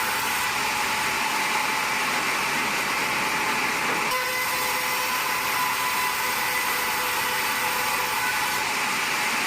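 Sawmill machinery running steadily: an even, hissing machine noise with a faint high whine, and a light click about four seconds in.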